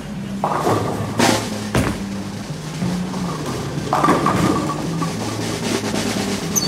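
Background music with drums, with two sharp crashes a little over a second in.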